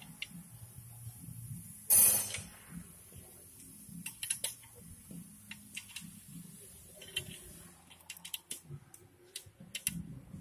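Metal wrench working the bolts of a tractor clutch pressure plate, tightening it for adjustment: scattered metallic clicks and ticks, with one louder clatter about two seconds in.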